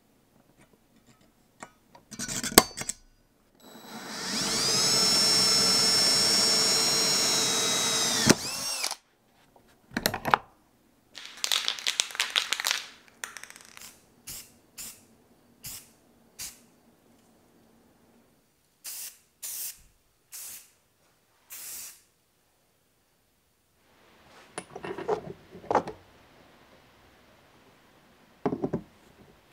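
An electric drill spins up and runs steadily for about four seconds, its whine rising as it comes up to speed. Short clicks and scrapes of hand tool work on metal come before and after it, with a cluster near the end.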